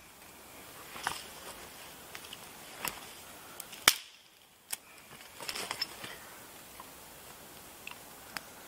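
Freshly lit campfire kindling crackling, with scattered sharp pops and snaps as the sticks catch. The loudest crack comes about four seconds in.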